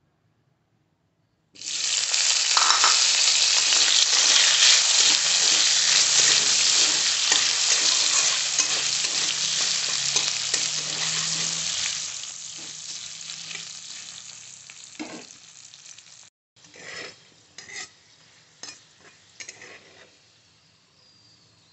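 Potato chunks frying in hot oil in a wok: a loud sizzle starts suddenly about a second and a half in and slowly dies down. After a brief cut, a flat spatula stirs and scrapes the potatoes against the pan, with a few short bursts of sizzling.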